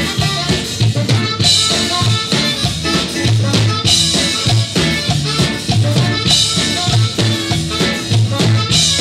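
Live band playing an upbeat swing-style number: a drum kit keeps a steady beat over repeated bass notes, with a bright cymbal crash about every two and a half seconds.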